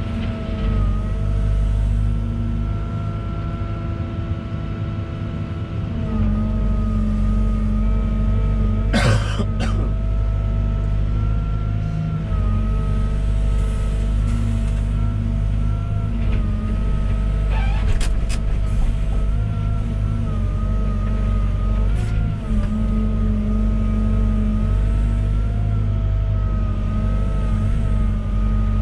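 Volvo EWR150E wheeled excavator working: its diesel engine and hydraulics run steadily with a whine, pulling harder from about six seconds in. There is a short clattering knock near nine seconds and a few lighter knocks later.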